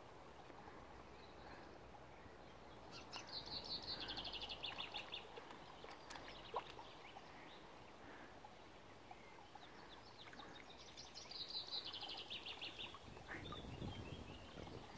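A small songbird singing two fast trilling phrases, each about two seconds long and falling in pitch, several seconds apart, over faint steady outdoor background noise.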